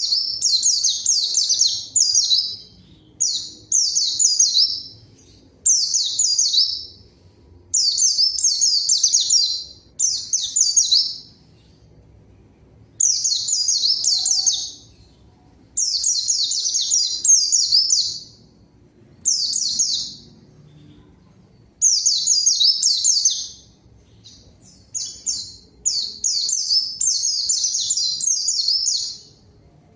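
Pleci (white-eye) singing full 'gacor' song: about a dozen bursts of rapid, high twittering, each one to three seconds long, separated by short pauses.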